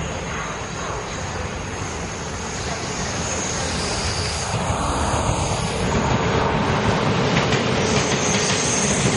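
Taiwan Railways PP Tze-Chiang push-pull express (E1000 series) running through the station on a curve, growing steadily louder as the power car and then the carriages pass close by. Wheels click over the rail joints in the second half, and a faint high whine comes and goes.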